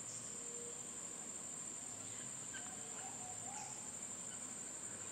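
Faint, steady, high-pitched insect chorus: one unbroken drone.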